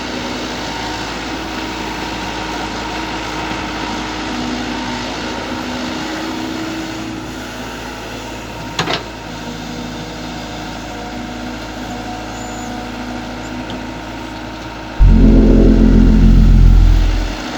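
Mini excavator engine running steadily, with a single sharp click about nine seconds in. Near the end a much louder low rumble comes in for about two seconds and then fades.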